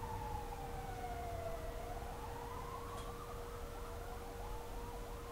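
A slowly falling whistle-like tone over a steady high hum, turning about halfway through into slow rising glides with many short flickering slides in pitch.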